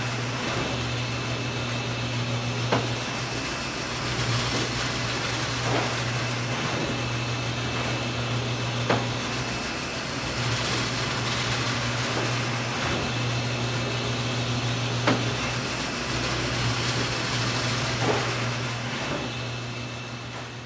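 Flatbed screen-printing press running with a steady motor hum, broken every few seconds by a sharp click or knock from the press mechanism; the sound fades away near the end.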